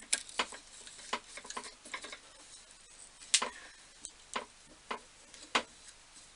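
Irregular light clicks and knocks of tools and small metal parts being handled at a workbench, about a dozen over several seconds, the sharpest one about three and a half seconds in.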